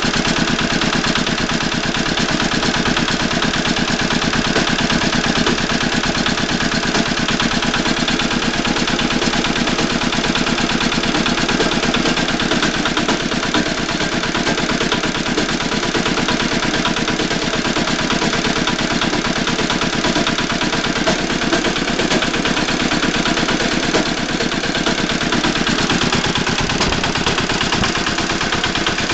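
Walk-behind tractor engine running steadily, with an even, rapid beat and a knock inside the engine.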